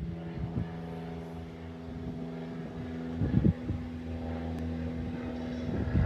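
Single-engine propeller plane flying overhead, its engine a steady drone. A few short low buffets of wind on the microphone break in, the strongest about halfway through.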